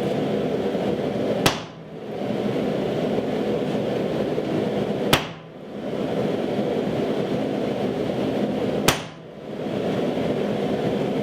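Three single sharp hammer blows on steel at the anvil, about three and a half seconds apart, over a steady rushing noise from the shop, likely the forge.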